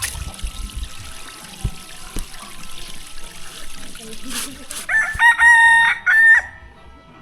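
A rooster crowing once, about five seconds in, a loud pitched call lasting about a second and a half.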